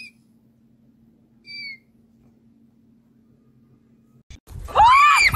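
Black kitten giving two short, high mews about a second and a half apart, over a faint steady hum. About four seconds in, a loud cry cuts in.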